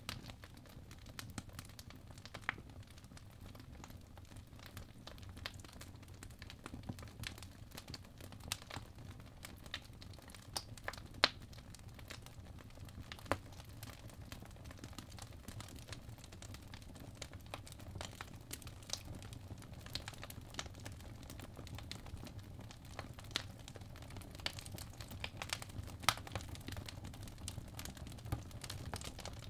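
Apple Pencil tip tapping and sliding on the iPad Pro's glass screen while drawing: scattered light clicks over a faint low hum.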